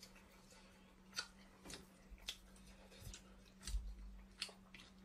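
Close-up eating sounds from a whelk: half a dozen short, sharp wet clicks and smacks as the meat is worked out of the shell and chewed, over a faint steady hum.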